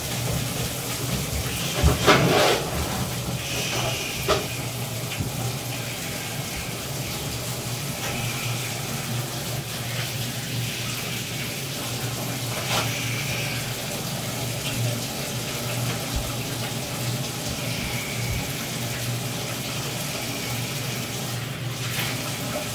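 Bathtub faucet running steadily into a filled tub, with a few brief louder noises about two seconds and four seconds in.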